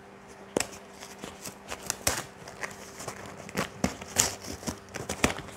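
Small cardboard box being opened by hand: irregular rustling, scraping and sharp crackles as the cardboard flaps and seam are pulled apart.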